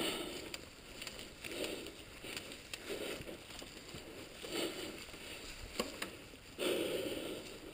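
Mountain bike rolling along a dirt singletrack covered in dry leaves: tires crunching and rustling through the leaves, with soft swells of noise about every one and a half seconds and a longer one near the end.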